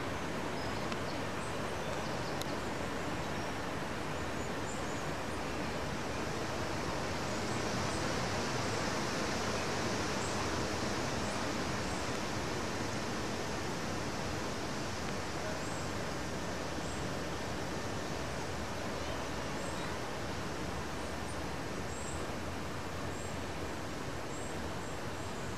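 Steady, even rushing noise of outdoor ambience on an old camcorder recording, with faint short high chirps scattered through it, like distant small birds.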